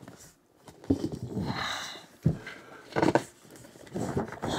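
Cardboard scraping and rustling with a few short knocks as a large headphone box is worked out of its tight cardboard sleeve by hand.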